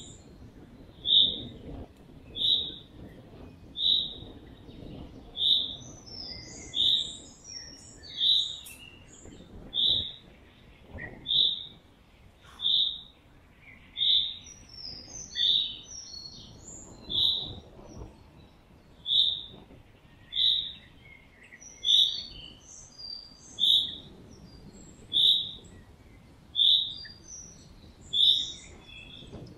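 A loud, high squeak repeating with machine-like regularity, about once every 1.3 seconds, over a low rumble of travel along the road. Softer bird chirps are scattered between the squeaks.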